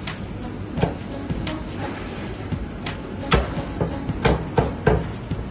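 Meat cleaver chopping a roast pigeon into pieces on a thick wooden chopping block: about nine sharp chops, sparse at first, then heavier and quicker in the second half, over a low steady background hum.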